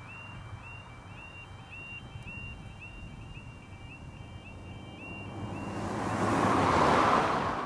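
Level crossing warning alarm sounding its repeating two-note yodel as the barriers come down. About five seconds in a car passes close by, its engine and tyre noise swelling to the loudest point and then dropping away.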